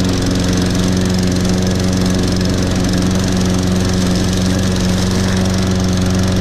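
Toro Recycler 22-inch walk-behind mower's 190cc Briggs & Stratton engine running steadily just after a cold start from about three months of sitting.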